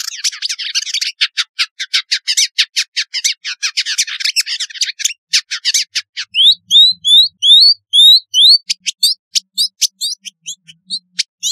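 Village indigobird singing: a fast chattering run of high chirps. About six seconds in it changes to a series of rising whistled notes, roughly three a second, then returns to short sharp chirps.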